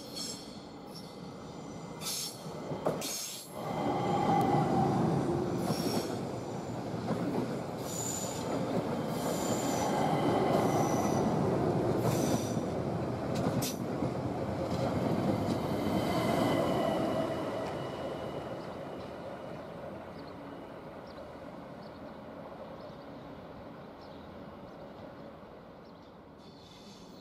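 ÖBB Talent (class 4024) electric multiple unit rolling slowly past on curved station tracks, its wheels squealing in high, shifting tones with short sharp screeches over the rumble of the bogies. The sound builds about three seconds in, stays loud while the train passes, and fades away over the last several seconds.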